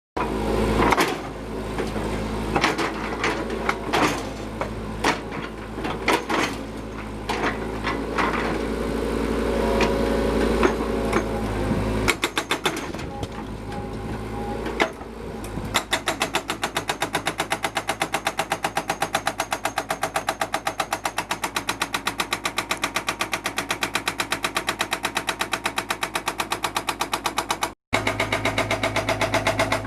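Excavator working on a concrete wall: its diesel engine runs under irregular knocks and crunches of breaking concrete, then from about halfway through a rapid, even hammering takes over, with a brief dropout near the end.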